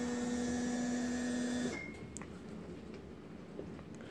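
Electric seat-lift motor of a powered wheelchair humming steadily as the seat lowers, stopping about one and a half seconds in, with a faint click soon after.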